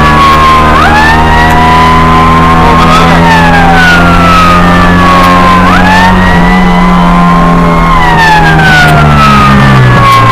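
Fire truck siren wailing, heard from inside the cab: a tone glides down over about two and a half seconds and snaps back up, three times, with a second slower-moving tone beneath it, over the steady drone of the truck's engine.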